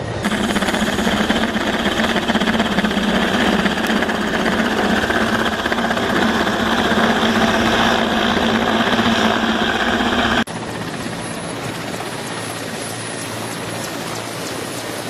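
Mi-8-family helicopter running on the ground with its rotors turning: a loud, steady mix of turbine whine, rotor noise and a low hum. About ten seconds in the sound cuts abruptly to a quieter, duller helicopter running.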